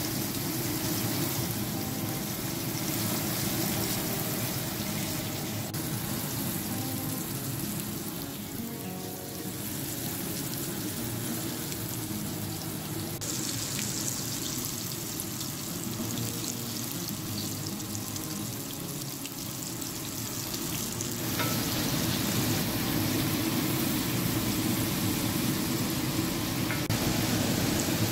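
Hot oil sizzling steadily in an enamel skillet as flour-dredged beef short ribs are seared brown, turning louder about two-thirds of the way in.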